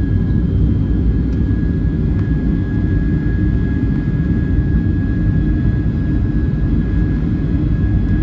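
Boeing 757-300 jet engines at takeoff thrust, heard inside the cabin during the takeoff roll: a steady, loud low rumble with a thin, steady high whine over it.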